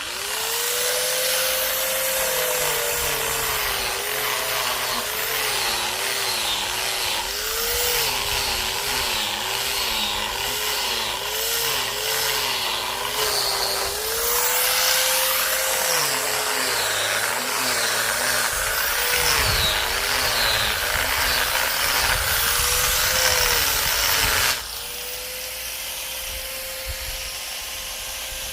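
Electric power tool cutting, its motor whine dipping and recovering again and again as it bogs under load. A few seconds before the end the cutting stops and the motor runs on freely, steadier and quieter.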